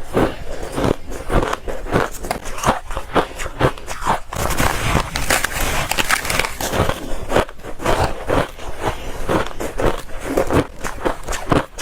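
Soft, dry freezer frost being crunched: dense, irregular crunches and crackles, several a second.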